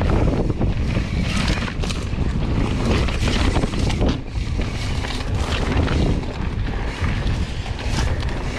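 Wind buffeting the microphone of a camera on a mountain bike descending a dirt trail. Underneath are tyres rolling over dirt and frequent short rattles and clatters from the bike over bumps.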